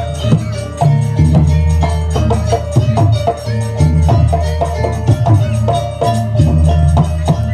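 Jaranan gamelan music: a busy rhythm of drums and struck percussion over repeated pitched metal notes, with deep booming low strokes.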